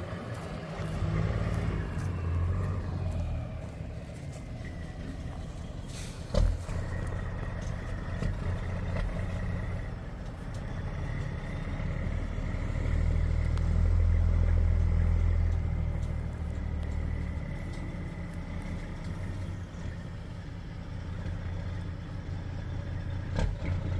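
Tow vehicle's engine running at low speed as it slowly maneuvers a heavy towed load, growing louder about halfway through. A single sharp knock about six seconds in.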